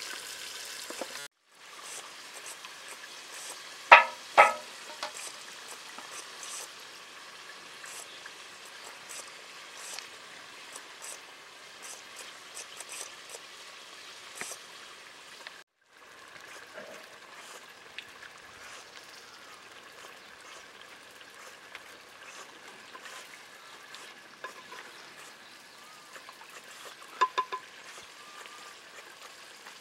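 Marinated mutton frying in hot oil in a clay pot, a steady crackling sizzle. A few sharp clinks stand out about four seconds in and again near the end, as the meat is stirred. The sound briefly cuts out twice.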